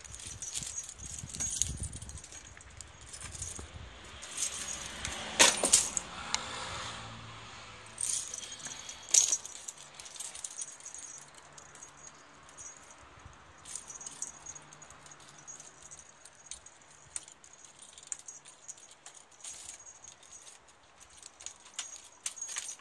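Close handling noise: irregular rattling, jangling and clicking, with two sharper knocks about five and a half and nine seconds in.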